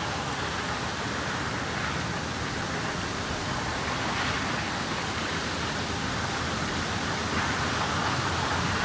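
A pair of narrow-gauge steam locomotives double-heading a train as they approach, heard as a steady rushing noise that slowly grows louder.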